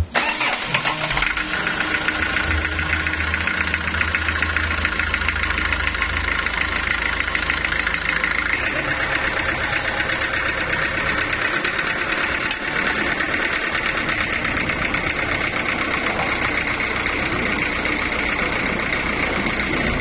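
A sawmill's stationary engine running steadily and driving the saw's pulley shaft through V-belts. The sound comes in abruptly at the start and stays loud and even.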